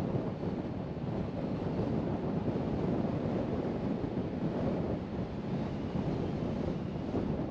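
Steady road noise from a moving car: a low, even rumble of tyres and engine.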